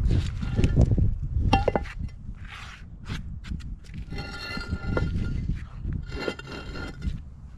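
Concrete retaining-wall blocks being handled and set on a gravel base: scattered knocks and clinks of block on block, and scraping as a block is slid into place about four and six seconds in. Wind rumble on the microphone, heaviest near the start.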